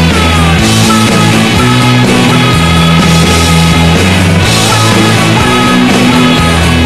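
Loud rock music with a steady bass and a melodic line over it.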